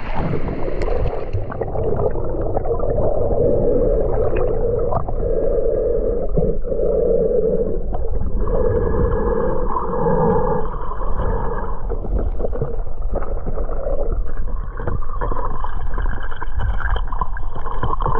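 Muffled underwater sound picked up by a submerged action camera: water sloshing and gurgling around the swimmer, with a low hum and small knocks, dull and without any treble.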